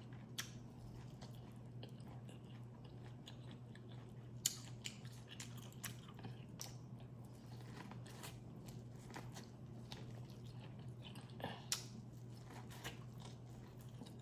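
Close-up eating sounds from a crawfish boil: quiet chewing and biting with scattered sharp clicks and crunches, the most distinct about four and a half, eight and eleven and a half seconds in.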